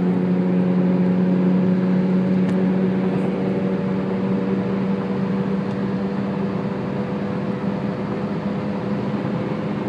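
Steady humming from a 2002 Chrysler PT Cruiser driven at 40 mph or more, over tyre and road noise, heard from inside the car. The owner thinks it may be a worn wheel bearing and hopes it is not a transmission bearing.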